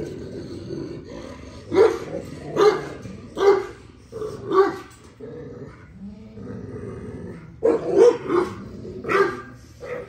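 American bully dogs at play, growling low and steadily with bursts of short, sharp barks: about four a little after the first second and about four more near the end.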